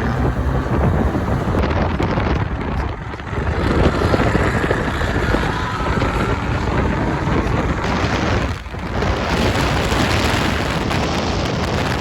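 Car engines and exhausts running loudly, with wind buffeting the microphone; the sound dips briefly twice.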